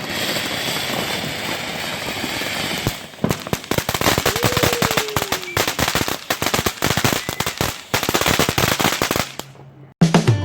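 Fireworks going off: a dense crackling, then from about three seconds in a long rapid run of sharp firecracker pops that dies away near the end.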